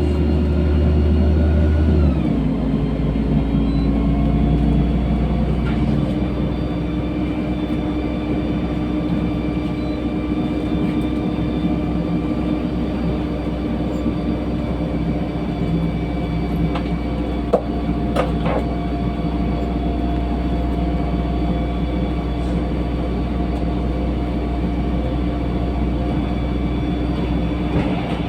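LiAZ-5292 city bus heard from inside the cabin while under way: the engine and drivetrain run with a steady low rumble. The pitch drops about two seconds in, then holds steady, with a couple of short clicks past the middle.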